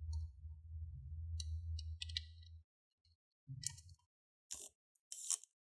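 Light clicks, taps and brief scrapes of laptop plastic and metal parts being handled as the display assembly is set onto the chassis, with a low hum under the first half. Several short, sharper rustling scrapes come near the end.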